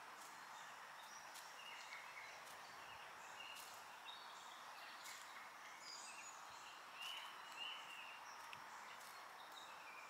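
Faint outdoor background hiss with scattered short, high bird chirps and small ticks.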